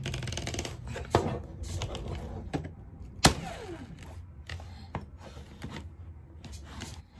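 Soft-faced mallet knocking on an Allen key clamped in a cordless drill's chuck, trying to break loose a chuck that is stuck fast on its spindle. Several sharp knocks at uneven intervals, the loudest about three seconds in.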